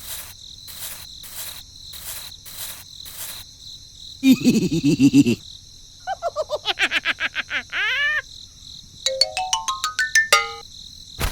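Cricket chirping in a steady pulsing rhythm, about two pulses a second, followed by a string of electronic cartoon-style sound effects: a short buzzy low burst, a quick run of falling tones ending in rising sweeps, then a rising stepped scale of beeps.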